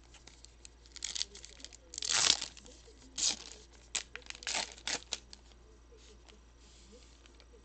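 Trading card pack wrapper being torn open and crinkled: a series of short rips and crinkles, the loudest about two seconds in, dying away after about five seconds.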